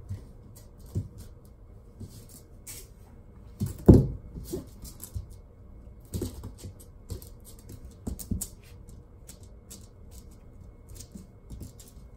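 Shiba Inu puppy scrambling and pouncing on a cushioned floor mat while biting at a dangled rope toy: scattered taps and scuffles of paws and claws, with one heavier thump about four seconds in.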